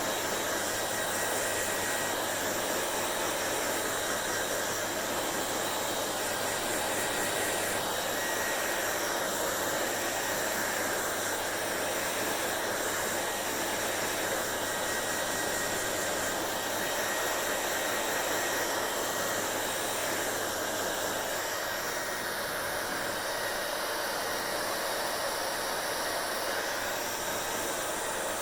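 Hair dryer running steadily, a constant rush of blown air over a low steady hum.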